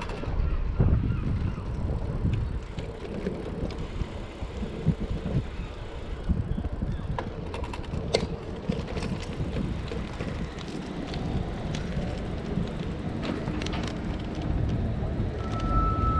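Wind buffeting the microphone over outdoor noise, with scattered light clicks and a short high beep near the end.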